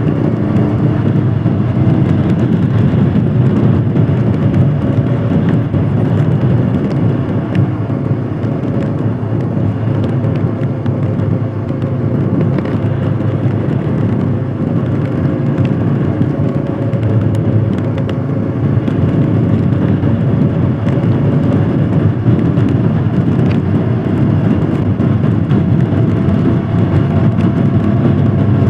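Royal Enfield Himalayan Scram 411's single-cylinder engine running steadily with the motorcycle under way, its note holding fairly even over a constant rush of road and wind noise.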